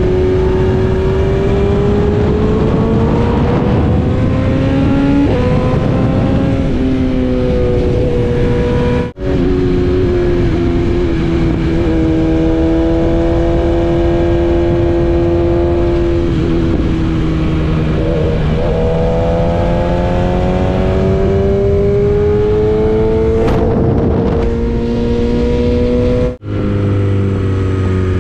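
BMW S1000RR inline-four engine heard from the rider's seat under way, its note rising and falling as the throttle opens and closes and the gears change, over a steady rush of wind. The sound cuts out sharply for a moment twice, near 9 seconds and again near the end.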